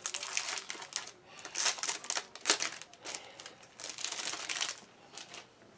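Plastic packaging bag being handled and opened, crinkling and rustling in irregular crackles.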